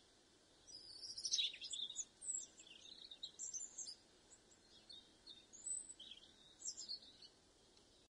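European robin singing: a string of high, quick notes that shift in pitch, starting about a second in, with a short pause around the middle, over faint background hiss.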